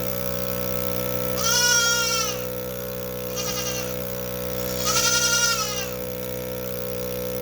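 Young goat kids bleating, three calls: two long, loud ones with a fainter short one between, the kids calling to nurse while their mother is milked. Under them runs the steady hum of the automatic milking machine's small motor.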